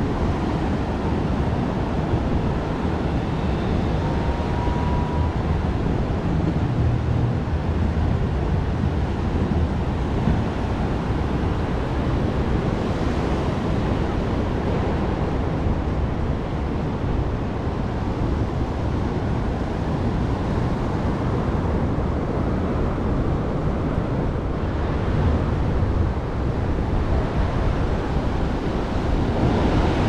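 Atlantic surf washing in and breaking along a flat sandy beach, a steady wash of noise with wind rumbling on the microphone.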